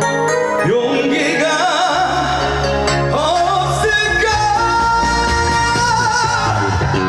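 Live trot music in an instrumental break between sung lines: backing band with a steady beat under a lead melody that slides and holds long wavering notes.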